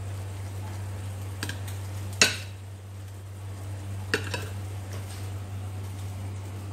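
A metal spoon and fork stirring cooked rice with egg yolk in a ceramic bowl. Soft scraping is broken by four sharp clinks of metal on the bowl, the loudest about two seconds in, over a steady low hum.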